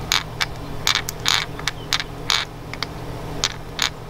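Weights inside a Savage Gear Mud Minnow, a clear plastic walk-the-dog topwater lure, clicking as the lure is rocked side to side: about a dozen light, irregular clicks a few tenths of a second apart. The sound is a subtle click, not a hard knock, as each fixed weight shifts sideways in its chamber.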